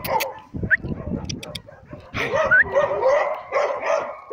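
A small dog whining and yipping in short, rising calls, louder from about two seconds in.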